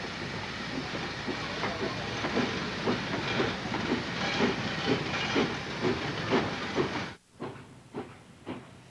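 Narrow-gauge Baldwin ten-wheeler steam locomotive working, its exhaust chuffing at about two beats a second over a steady steam hiss. About seven seconds in the sound cuts off abruptly and comes back fainter and farther away, the beats still going.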